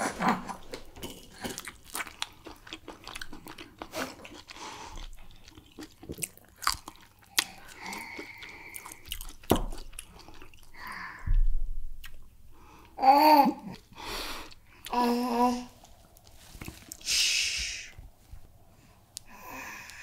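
Close-miked wet chewing of a soft swallow with egusi soup: many small sticky clicks and lip smacks for about twelve seconds. Then come two short voice sounds from the eater and a long breathy exhale.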